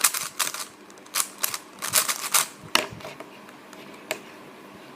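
Plastic Rubik's Cube layers being turned quickly: quick runs of sharp clacks in several bursts over the first three seconds, then a single click about four seconds in.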